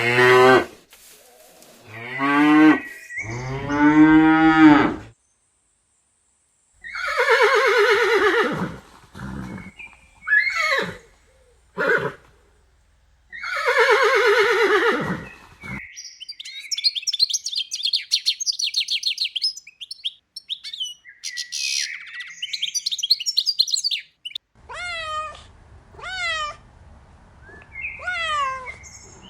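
Cattle mooing: several long, loud calls, each a second or two. Then a few seconds of rapid high chirping, and near the end a series of short calls that fall sharply in pitch, about one a second, like cat meows.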